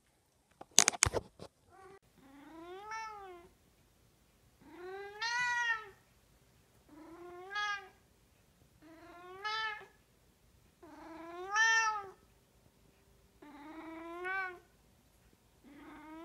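Tortoiseshell cat meowing over and over: six drawn-out meows about two seconds apart, each rising then falling in pitch, with a seventh starting at the end. A short burst of sharp clicks, the loudest sound, comes about a second in, before the meowing starts.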